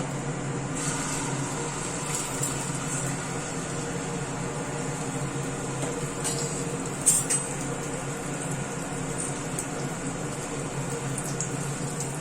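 Steady mechanical hum, with a few sharp clicks about two, six and seven seconds in.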